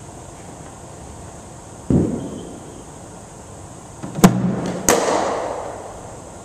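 A dull thump, then about two seconds later two sharp cracks close together as a cricket ball pitches on the hard indoor surface and meets the bat, the second crack ringing on in the echoing hall.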